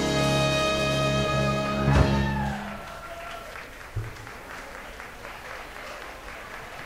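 A dance band's horns hold a final chord, closed by a sharp drum hit about two seconds in, then the audience applauds.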